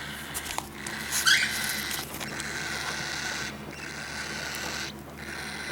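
A three-week-old baby bird giving a short, high cheep about a second in, amid faint scratching and tapping.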